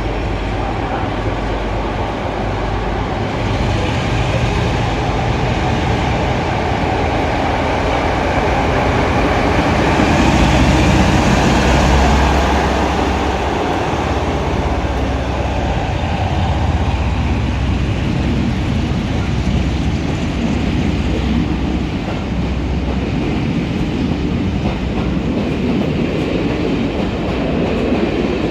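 A train running through a station, its rumble and wheel noise steady and loudest about ten to twelve seconds in.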